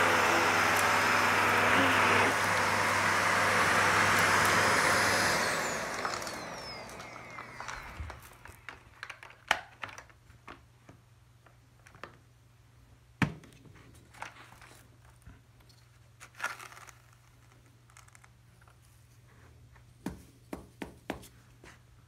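Shark Powered Lift-Away upright vacuum running on a rug, switched off about five seconds in, its motor whining down over the next two seconds. After that come scattered sharp clicks and knocks as the machine is handled and taken apart, the loudest two a few seconds apart.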